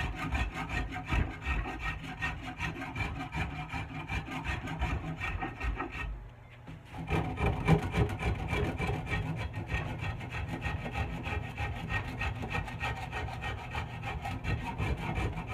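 Stanley hand shaping tool rasping over a hickory axe handle in repeated strokes, rounding in the sides of the bulbous palm swell. The strokes stop briefly about six seconds in, then carry on.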